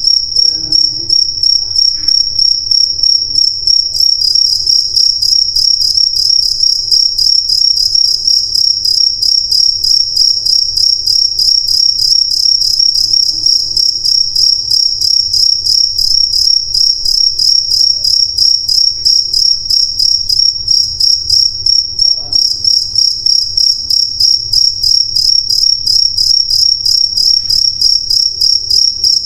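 Crickets chirping: a loud, high-pitched trill pulsing in a fast, even rhythm.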